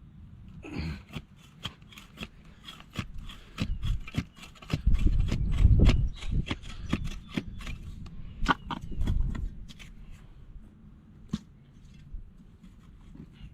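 A hand shovel scraping and digging in wet soil, with many irregular clicks and scrapes. A heavier low rumble of handling comes around five to six seconds in.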